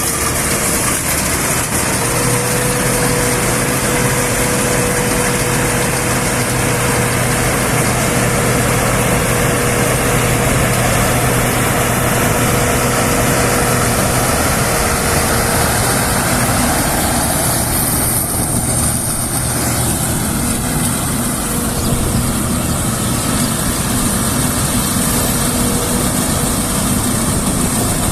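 Combine harvester running steadily in the field: a continuous engine drone under the noise of the machinery, with a steady whine held through it.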